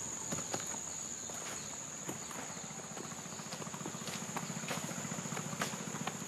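Insects droning, a steady high-pitched chirring, with scattered sharp clicks and snaps. From about two and a half seconds in, a low, rapidly pulsing buzz joins.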